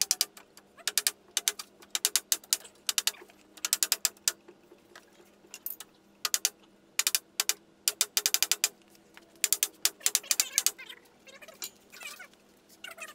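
Quick runs of sharp taps, several in a row, repeated over and over, as the walnut sofa's top rail is knocked down onto its row of 19 spindle dowels.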